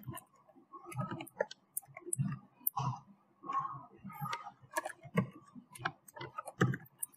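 Typing on a computer keyboard: an irregular run of quiet key clicks and soft thumps.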